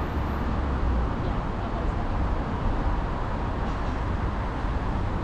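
Steady road traffic noise, a low rumble with no distinct events.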